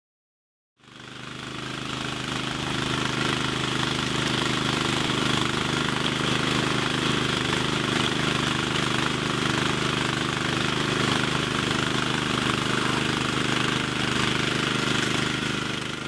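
Small gasoline engines of walk-behind concrete power trowels running steadily. The sound fades in about a second in and then holds constant.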